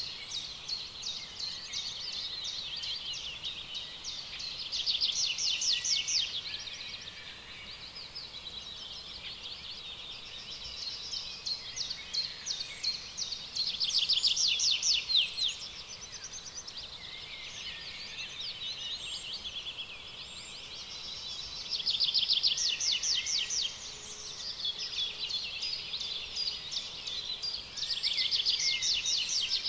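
A continuous chorus of high, rapidly pulsing buzzy calls from the surrounding forest. It swells clearly louder four times and falls back between the swells.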